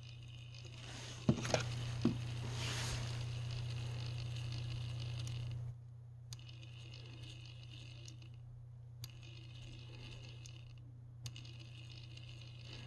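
A few sharp clicks, then a steady low hum that gets louder for about four seconds and cuts off suddenly. A faint hiss and occasional light ticks come after.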